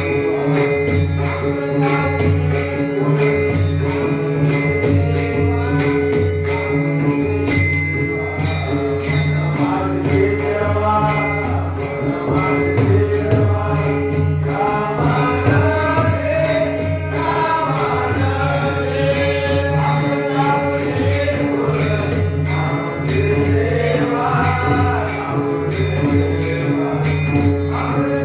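Marathi devotional bhajan: voices singing in a group over a steady rhythm of jingling metal percussion and a low beat.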